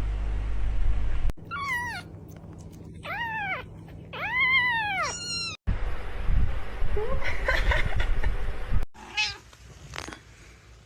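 Domestic cats meowing across several short clips. There are four rising-and-falling meows in quick succession in the middle, then fainter calls later. A loud low rumble fills the first second and the stretch after the middle meows.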